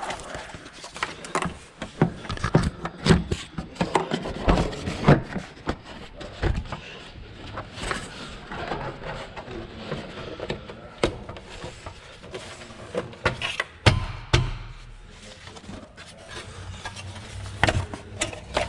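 Irregular plastic knocks, clicks and rubbing as an engine air box and its little vent tube are worked and snapped into place.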